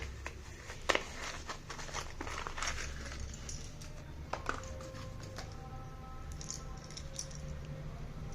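Crisp clicks and crackles of slate pencils being handled over the first three seconds or so, then soft background music with a few held notes from about four seconds in.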